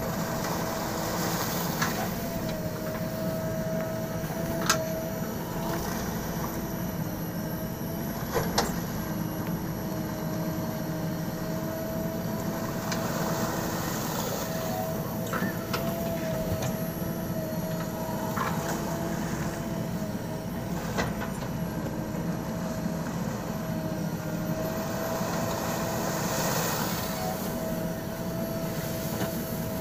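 JCB 3DX backhoe loader's diesel engine running steadily with a held whine over it, and a few sharp metallic knocks, the loudest about five and eight and a half seconds in.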